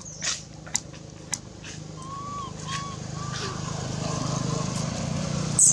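A vehicle engine hums in the background, growing louder toward the end as it passes. A few short clicks, three brief high calls and a sharp click near the end sound over it.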